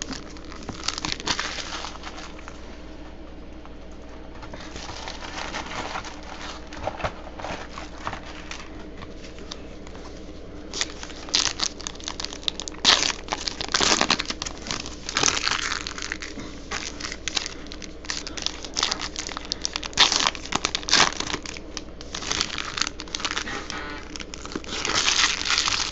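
Trading-card pack wrappers crinkling and tearing as packs are opened and handled by hand. The crackles come in irregular bursts, busier and louder in the second half.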